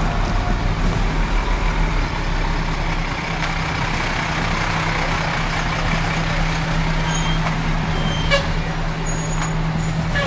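Fire truck engines running steadily as the trucks roll slowly past close by, a low, even drone. A brief sharp sound stands out about eight seconds in.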